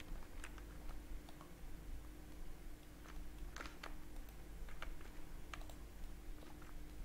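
Computer keyboard keys and mouse buttons clicking at irregular intervals as shortcuts are pressed, with a louder pair of clicks about three and a half seconds in. A low steady hum sits underneath.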